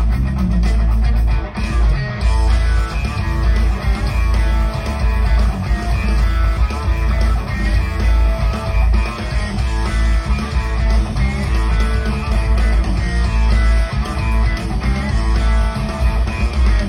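Instrumental music led by guitar over a heavy bass line, with no singing.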